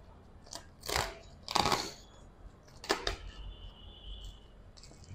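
Rustling and clicks of a photo softbox being handled and fitted: several short scuffs of its reflective fabric and frame, the loudest about one and a half seconds in, and a sharp click about three seconds in.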